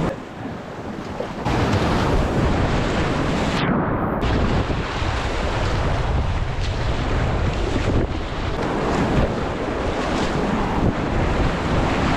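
Rushing, churning water at a kayak play spot, heavily buffeted by wind noise on the microphone. It is quieter for about the first second and a half, then loud and steady.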